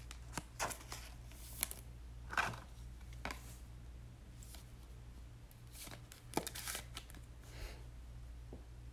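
Faint, scattered rustles, slides and light taps of trading cards being handled, over a low steady hum.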